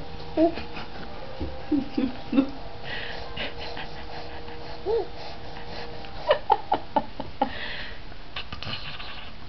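Baby giggling in short bursts, with a quick run of four or five giggles about six seconds in.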